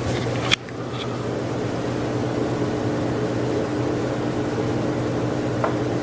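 Craftmade Max Air 29-inch ceiling fan running: a steady motor hum with the rush of air from its steeply pitched blades. A sharp click about half a second in is followed by a brief dip in the sound, which builds back within about a second.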